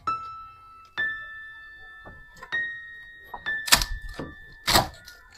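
Background music of single bell-like notes, each struck and left ringing, about one a second. Two loud thumps land about a second apart near the end.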